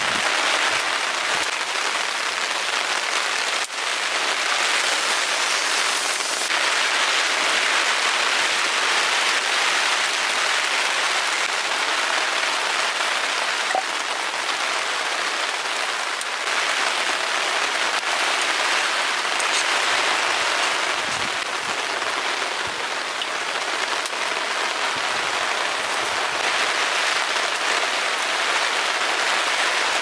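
Heavy rain falling steadily in a continuous, even hiss, with one brief sharp click a few seconds in.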